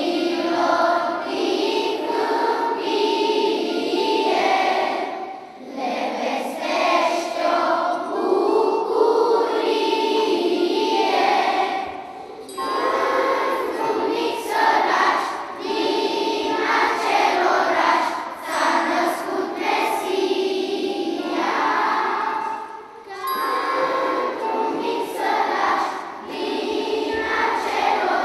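Large children's choir singing in unison phrases, each a few seconds long, with brief pauses between them.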